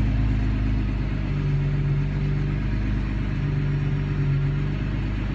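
1999 Audi A4 Quattro engine idling roughly. A low tone in its note swells and fades about every two seconds, and there is no revving.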